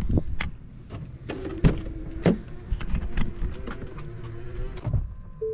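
Ford pickup truck's driver door being unlatched and opened and a person climbing into the cab: a series of sharp clicks and knocks, with a faint steady tone under them from about a second in until near the end.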